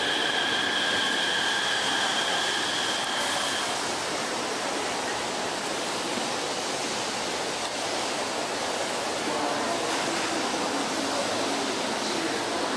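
Dense crowd of metro commuters walking along a station platform: a steady wash of shuffling footsteps and low murmur. A steady high whine runs through the first few seconds and stops about three and a half seconds in.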